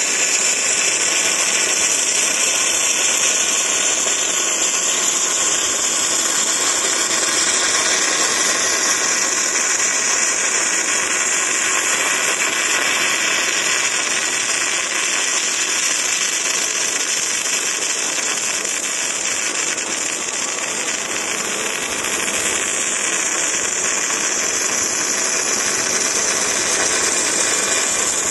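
Robotic MIG welding arc from a six-axis welding robot's torch, hissing steadily as it lays a weld in a steel grid frame. The hiss eases slightly about halfway through and then comes back.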